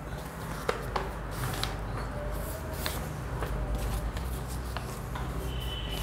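Light handling noises, rustling and a few soft clicks, over a steady low room hum.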